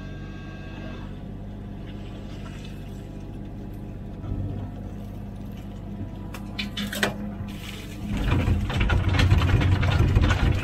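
Komatsu PC16 mini excavator's diesel engine running steadily under hydraulic work as the arm lifts and swings. About 8 seconds in, the sound grows much louder, with dirt and stones clattering into the metal bed of a truck as the bucket dumps.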